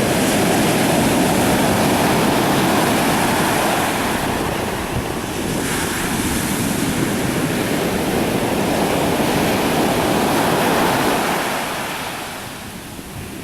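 Pacific Ocean surf breaking and washing up a sand beach: a steady roar that swells as a wave comes in at the start and again about six seconds in, then eases off near the end.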